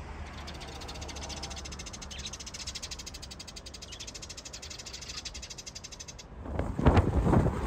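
A fast, even, high-pitched pulsing over a low hum, which stops about six seconds in; then wind gusts buffet the microphone with a loud low rumble.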